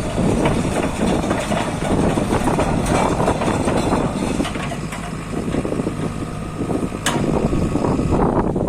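JCB JS145 tracked excavator's diesel engine running steadily, with a single sharp click about seven seconds in.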